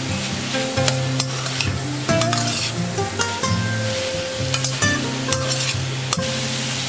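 Diced chicken and shiitake mushrooms sizzling in a stainless steel wok as a metal spatula stirs them, with frequent sharp clicks and scrapes of the spatula against the pan.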